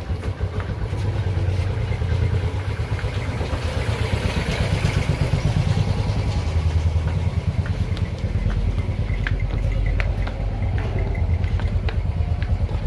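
An engine running steadily with a low, rapid chugging, and a few light clicks in the later seconds.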